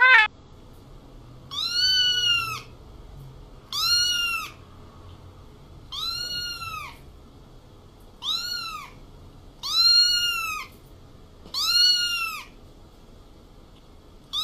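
A cat meowing six times, about every two seconds. Each meow rises and then falls in pitch.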